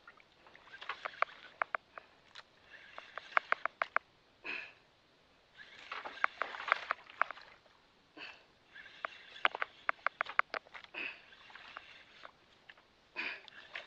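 Spinning reel clicking in short bursts of several sharp clicks, about four bursts with pauses between, as a hooked fish is fought on a bent jigging rod.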